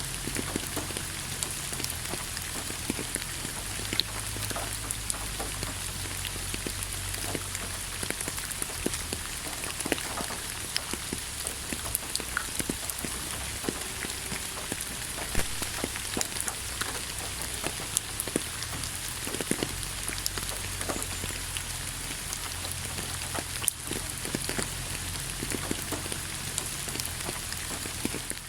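Steady rain falling on a surface, with many individual drops ticking sharply over a continuous hiss and a low rumble underneath.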